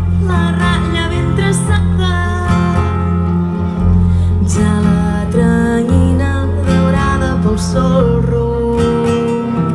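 Live habanera group singing in close harmony to a strummed acoustic guitar and a plucked double bass, the bass notes changing about once a second.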